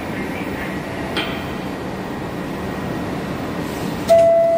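Steady hum of a stopped New York City subway car at the platform, then about four seconds in a loud single-pitched chime: the door-closing signal, just before the doors slide shut.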